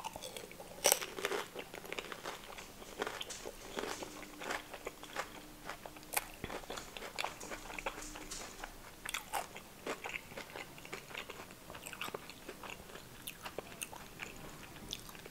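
Close-miked crunching and chewing of a whole pani puri, the crisp fried puri shell cracking between the teeth in many small crunches. The loudest crunch comes about a second in.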